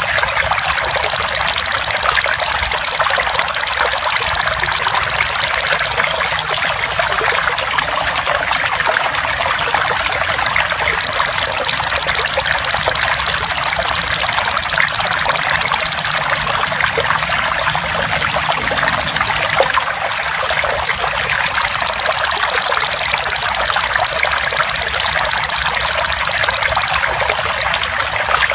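Steadily trickling water under three loud, fast-pulsed buzzing trills of a belalang emas (golden grasshopper), each lasting about five and a half seconds with about five seconds of water alone between them. It is a masteran track, meant as song material for training competition songbirds.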